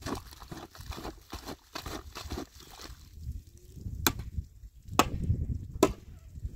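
Rustling and scraping for the first couple of seconds, then three sharp knocks about a second apart over a low outdoor rumble.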